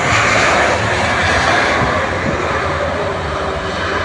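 Boeing 737 airliner's jet engines running loud during its landing roll: a steady rushing roar that is strongest at the start and eases a little as the plane draws away down the runway.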